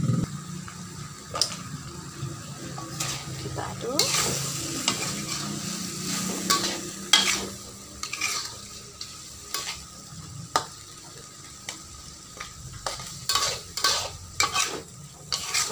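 Metal spatula stirring chicken pieces in a wok, with repeated clicks and scrapes against the pan over the sizzle of frying.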